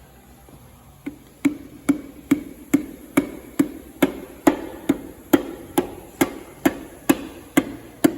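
A hammer tapping steadily, a little over two strikes a second, each with a short ringing note, starting about a second in.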